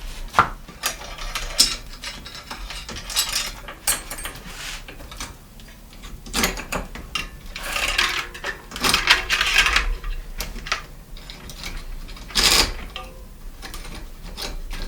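Stiff, rusty bicycle chain being worked apart and pulled off the bike: metal links clinking, rattling and scraping in irregular bursts.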